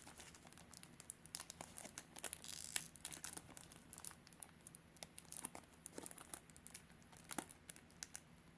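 Zendikar booster pack's foil wrapper crinkling as it is handled and pulled at, faint irregular crackles and small tearing sounds: the pack is stubborn to tear open.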